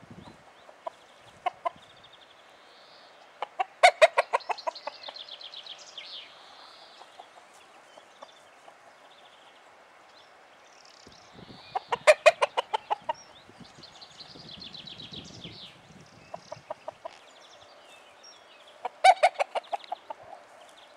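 Cockerel clucking: three loud bursts of rapid clucks about eight seconds apart, each fading away over a second or so, with a few softer clucks between them. Faint songbirds chirp in the background.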